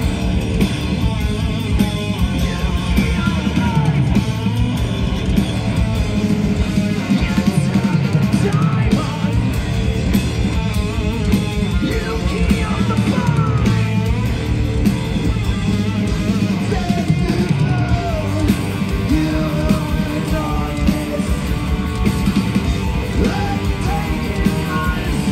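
Live heavy metal band playing loud: distorted electric guitars, bass and a driving drum kit, with sung and yelled vocals, heard from the crowd.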